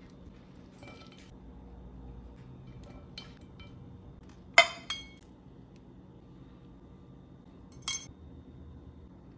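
Metal kitchenware clinking: a few light taps, then a loud ringing clink about four and a half seconds in with a smaller one right after, and another clink near the end as a spoon works in a small metal cup.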